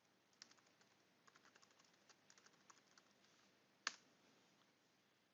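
Faint typing on a computer keyboard: a quick run of keystrokes, then one louder click about four seconds in.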